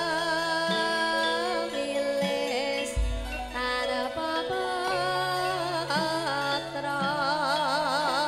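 A Javanese gending played live: long wavering sung or melodic notes with wide vibrato over sustained tones and a stepping bass line, with one deep low thump about three seconds in.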